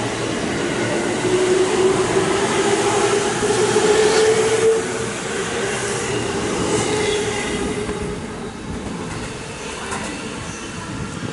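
JR East 205-5000 series electric train pulling out of the station: its traction motors whine in one tone that rises for about five seconds as it accelerates, over the rumble and clatter of wheels on the rails. The sound grows quieter after about eight seconds as the cars move away.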